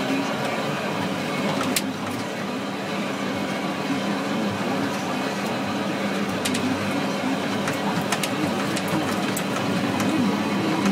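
Steady drone of a Case IH MX170 tractor and its New Holland 1432 discbine mowing alfalfa, heard from inside the tractor cab, with a few sharp clicks and rattles.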